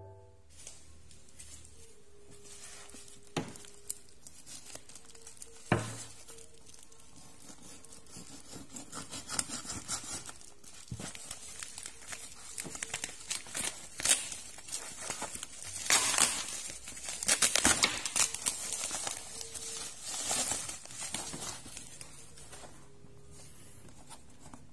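Black plastic packaging being torn open and crumpled by hand, in irregular bursts of crinkling and ripping, with two sharp knocks in the first few seconds.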